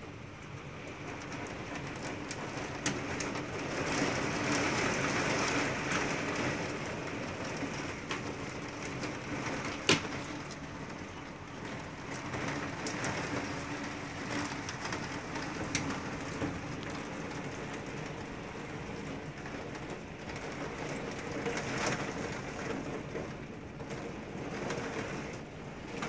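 Heavy rain pouring steadily onto a wooden deck in a hailstorm, heard from behind a glass door, with a few sharp knocks.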